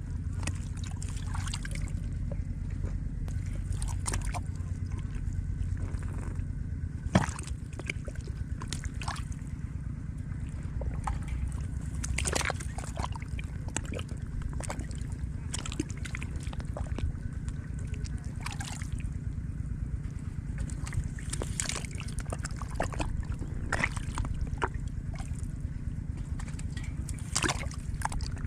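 Water sloshing and splashing in short, irregular bursts over a steady low rumble, with one sharp knock about seven seconds in.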